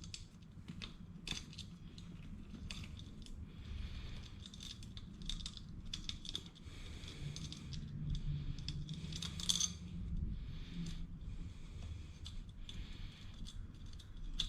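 Irregular small metallic clicks and scrapes of a hand tool working at the valve of a scooter's inner tube to remove the valve core. This is done so that the tube is fully deflated.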